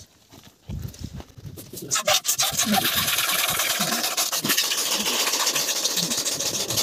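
Camel's milk being squirted by hand into a steel bowl of frothy milk. After a couple of quieter seconds it becomes a loud, fast, rhythmic hissing spray as the streams hit the foam.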